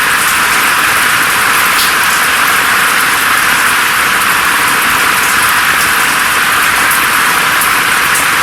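Steady rain falling through forest foliage, an even hiss with faint scattered drop ticks and almost no low rumble.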